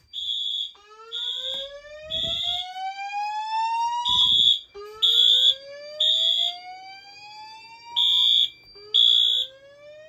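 A fire alarm speaker plays a whoop evacuation tone: three slow rising sweeps. Under it a high-pitched fire alarm beeps in the temporal-three evacuation pattern, three half-second beeps and then a pause, over and over.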